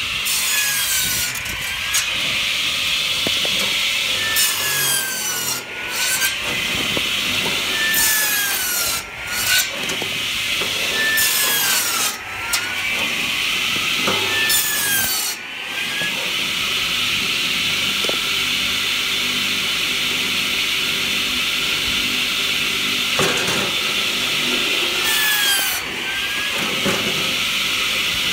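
Hartnett 500mm electric log saw bench running, its circular blade cutting through logs about six times. On each cut the blade's note dips and then rises back as the wood parts, with a long stretch of plain running before the last cut.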